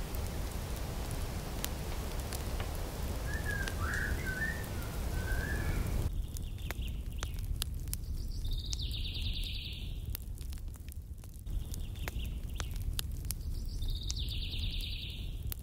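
Birds chirping over a low rumble, with scattered crackling clicks from a campfire. About six seconds in, the background abruptly gets quieter, and a higher chirping bird call comes twice, about six seconds apart.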